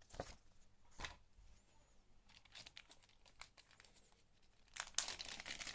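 Small resealable plastic bag holding game cards being handled and pulled open: faint crinkling of thin plastic, densest near the end as the zip seal is pulled apart. Two short rustles come about a second apart at the start.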